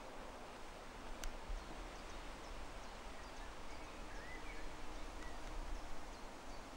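Quiet woodland ambience: a steady low hiss with faint, scattered bird chirps, and one sharp click about a second in.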